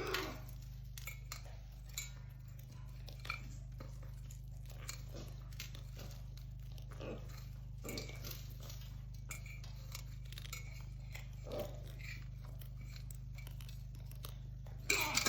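Chewing and crunching: small, irregular crunches over a steady low hum.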